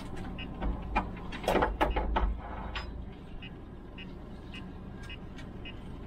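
A cluster of sharp knocks and clatter in the first half, over a steady low hum, with a faint short high beep repeating about every half second.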